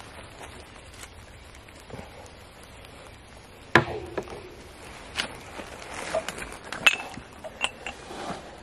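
Scattered knocks and clicks over a faint steady hiss, the loudest a sharp knock almost four seconds in, with further clicks near five, seven and seven and a half seconds.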